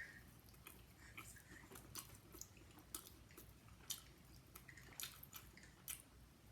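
Faint, wet chewing with soft mouth clicks at uneven intervals, roughly one or two a second.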